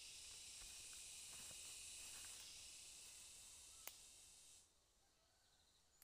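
Faint insect chorus in the forest: a steady high-pitched buzz that stops suddenly about four and a half seconds in. There are a few small rustles of leaves and one sharp click just before it stops.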